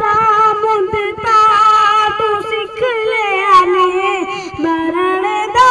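A child singing a slow melody, holding long notes with a wavering pitch and pausing briefly for breath between phrases.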